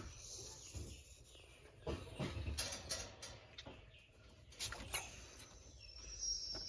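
Faint scattered scuffs, clicks and rustles, a handful spread through, from a dog shifting about in a wire cage as it is handled.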